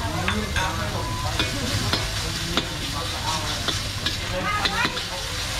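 Food sizzling as it is stir-fried in a pan, with a utensil scraping and clacking against the pan every second or so.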